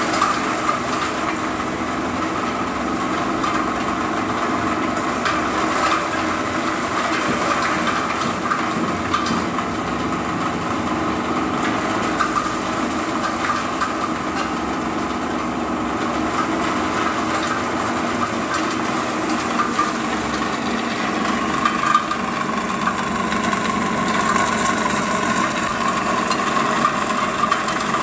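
Dry garlic peeling machine running steadily: an even machine hum with a band of whirring tones, a light hiss and faint scattered ticks.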